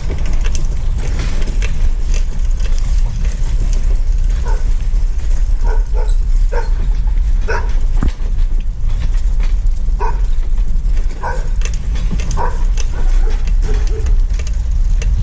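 Vehicle driving, a steady low rumble, with about eight short sharp calls of an animal breaking in over it through the middle.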